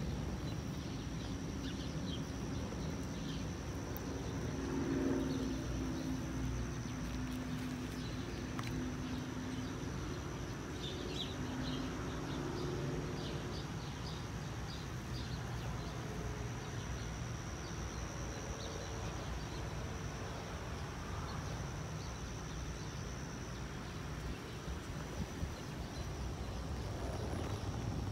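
Outdoor ambience: a steady, high-pitched insect drone, scattered faint bird chirps, and a low hum that swells about five seconds in and again around twelve seconds.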